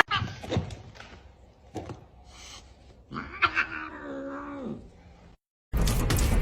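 A domestic cat giving one drawn-out yowl of about a second and a half that drops in pitch at the end, after a few light knocks. Near the end a loud, noisy passage cuts in suddenly.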